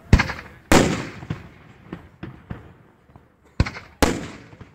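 Fireworks shells bursting in the air: two loud bangs about half a second apart near the start and two more near the end, each trailing off in a rolling echo, with smaller pops in between.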